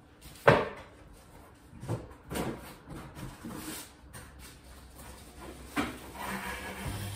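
Cardboard shipping box being rummaged through: a sharp thump about half a second in, a few lighter knocks and scrapes, and a rustle of cardboard near the end.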